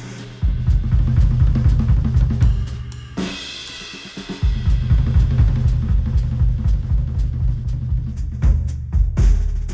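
Music with a full drum kit and heavy bass, played through headphones and picked up by microphones. The bass and kick drop out about three seconds in and return about a second later.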